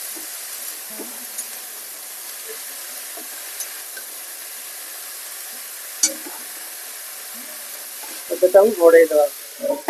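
Pumpkin stems, potato and brinjal stir-fried in oil in a metal kadai: a steady sizzle, with a metal spatula scraping and clicking against the pan and one sharp click about six seconds in. Near the end comes a short, louder burst with a pitched edge.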